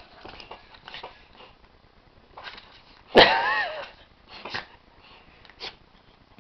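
Poodle sniffing and puffing at a pen in short, separate breaths. About three seconds in comes one louder, wavering, high-pitched cry lasting under a second.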